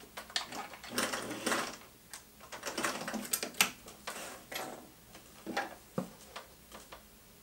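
Vintage Singer 503A sewing machine turned slowly by hand at the handwheel while stitching over a zipper: irregular mechanical clicks and short rattles with no motor running.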